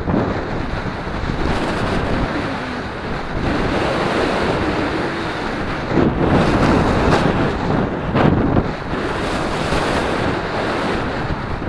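Wind blowing across the microphone while riding a bicycle into a headwind: a loud, even rush of noise that swells in gusts about six and eight seconds in.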